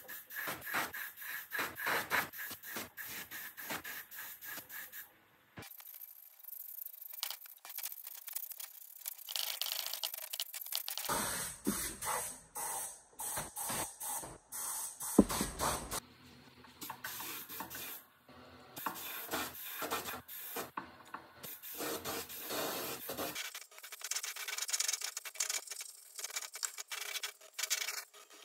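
Paint spray gun hissing in short bursts as paint is sprayed, with several abrupt cuts.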